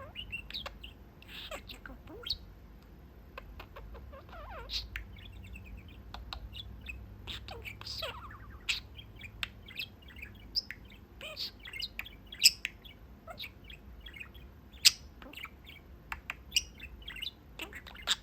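Pet budgerigar chattering and warbling: a fast, uneven stream of short chirps, clicks, squeaks and gliding whistles, with a few sharp loud chirps about two-thirds of the way through.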